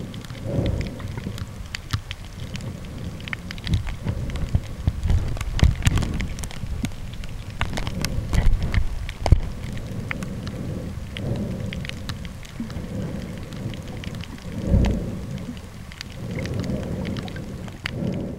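Underwater reef ambience heard by a camera sealed in a soft plastic waterproof pouch: a dense, steady crackle of clicks over low, muffled rumbling surges of moving water.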